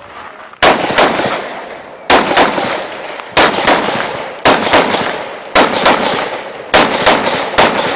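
Firearm shots fired one after another, about seven in all, roughly a second apart, each with a ringing echo trailing off.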